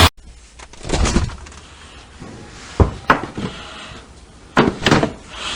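A handful of short, sharp knocks and thumps, irregularly spaced, with a brief hiss near the end.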